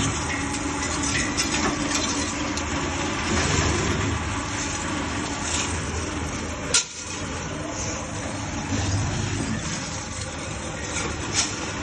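MRR-25 radiator-dismantling machine running steadily, with a sharp knock about seven seconds in.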